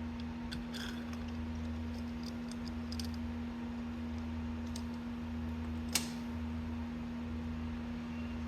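A steady low hum, with a few faint clicks of tools and small metal parts as a Zenith 32 NDIX carburetor is taken apart and its jets removed; one sharper click comes about six seconds in.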